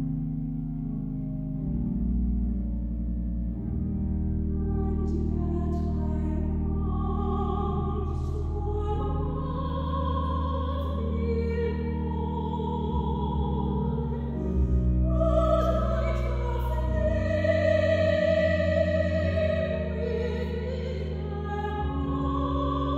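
Two singers singing a slow sacred piece with vibrato over long held low organ notes. The voices come in a few seconds in and swell louder around the middle.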